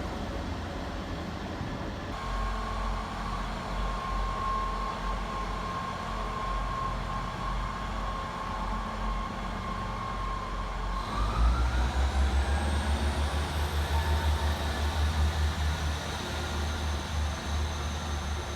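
Diesel train engine running with a steady whine. About eleven seconds in, the engine revs up with a deep, pulsing rumble and the whine rises in pitch.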